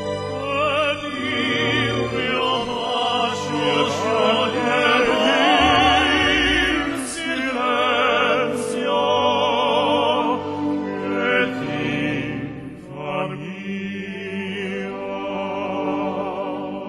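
Background music: a singing voice with strong vibrato over sustained instrumental notes, in an operatic style.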